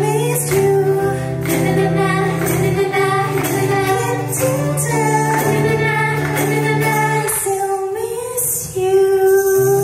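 Women's voices singing a live acoustic song, accompanied by a strummed acoustic guitar. The low accompaniment drops out for a moment near the end, then comes back in.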